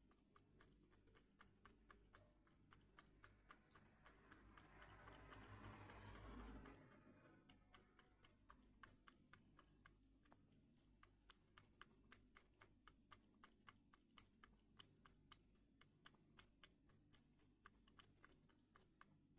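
Cat lapping milk: faint, quick wet clicks of the tongue, about four a second. A rushing noise swells over a couple of seconds and stops abruptly about six and a half seconds in.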